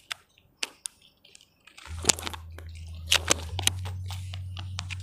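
Fingers working massage cream over skin: soft wet squishing with scattered sharp clicks. A low steady hum sets in about two seconds in.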